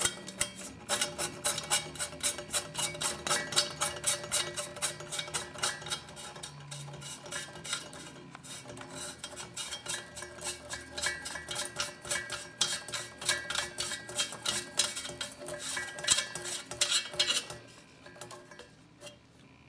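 Brass hex lock nut being spun by hand onto the threaded shank of a chrome stand-up faucet against its metal base plate: a long run of quick, light metallic clicks and clinks over a faint ringing, stopping near the end.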